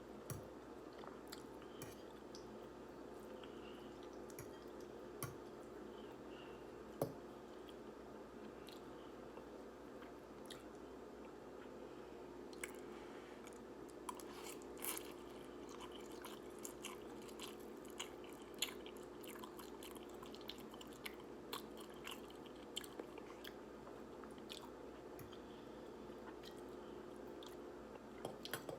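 A person chewing and biting instant ramen noodles close to the microphone, with many small mouth clicks and smacks that come thickest in the middle. A faint steady hum runs underneath.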